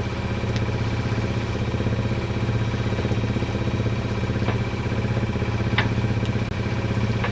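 A sailboat's engine running steadily under way, a constant drone with a fast even pulse.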